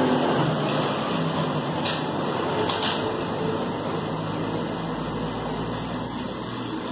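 Corded electric dog clipper running with a steady buzz as it is drawn through a cocker spaniel's coat.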